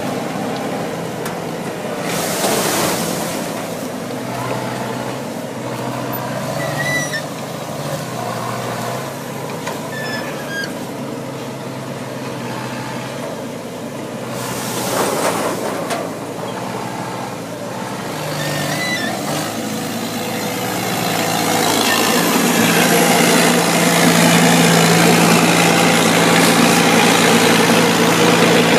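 Olive harvester's engine and machinery running steadily, its pitch shifting now and then. Two brief rushes of noise come early and about halfway through. About two-thirds of the way in the engine speeds up and runs louder.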